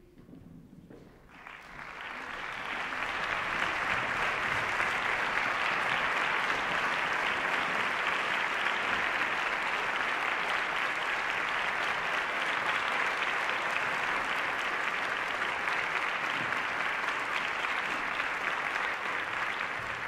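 Concert-hall audience applauding. The clapping begins about a second in, swells to full strength within a couple of seconds, holds steady, and starts to die away near the end.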